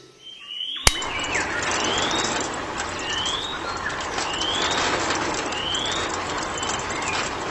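A sharp click about a second in, then a steady rushing noise with a short rising chirp repeated about once a second, like a bird calling.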